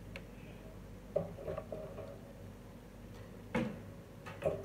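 Light clicks and knocks from the plastic housing and wire guard of a wall fan being handled during reassembly, with a louder knock about three and a half seconds in.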